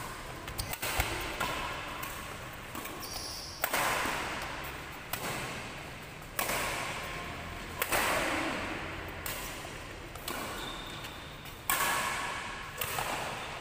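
Badminton racket strings hitting a shuttlecock during a rally: a string of sharp hits a second to a few seconds apart, each echoing in a large hall.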